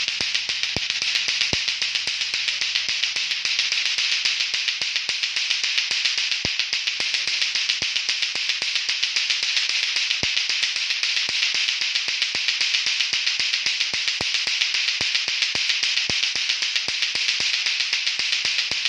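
Lato-lato clacker toy: two hard plastic balls on strings knocking together in a fast, even run of sharp clacks that goes on without a break.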